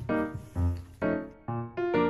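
Light background piano music, notes struck about every half second, each one fading before the next.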